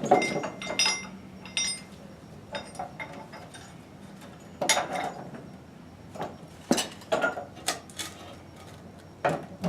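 Metal Ellis shoring jack being handled and fitted against a wooden shore post: scattered metallic clinks and knocks, a few with a short ring.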